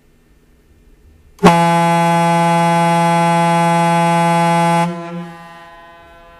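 Bronze Leslie Tyfon A-200 ship's horn sounding one steady blast of about three and a half seconds on its single low note, E3 at about 168 Hz, rich in overtones. It starts abruptly about a second and a half in and cuts off sharply, leaving a short fading echo.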